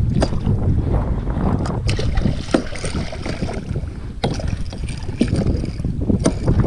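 Wind buffeting the microphone on a plastic sit-on-top kayak on open water, a steady low rumble, with scattered light knocks and clicks.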